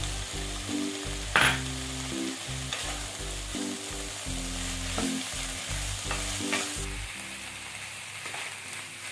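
Pickled bamboo shoots and pork belly sizzling in a hot pan while being stir-fried, with a spatula scraping and knocking against the pan every second or so. The loudest knock comes about a second and a half in.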